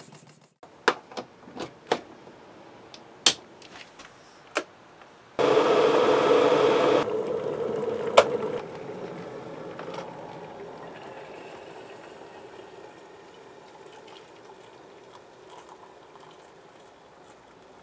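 Electric kettle: a few light clicks, then water running in loudly for about a second and a half, a sharp click as the kettle is switched on, and a faint hiss of it heating that slowly fades.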